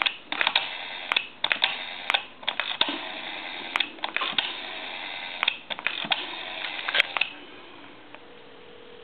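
Rotary dial of an old candlestick telephone being pulled round and let go digit after digit, whirring and clicking as it spins back and pulses out the number. About eight seconds in, a faint steady tone comes on the line as the call rings through.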